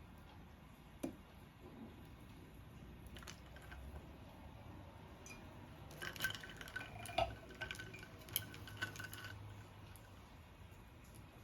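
A glass of iced coffee clinking: one light tap about a second in, then a run of quick clinks over about three seconds in the second half, with the glass ringing faintly under them.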